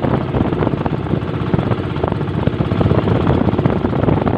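Small boat's engine running steadily.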